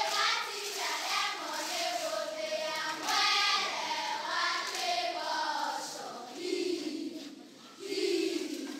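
Several high voices, children's among them, calling out together in drawn-out, singing-like tones.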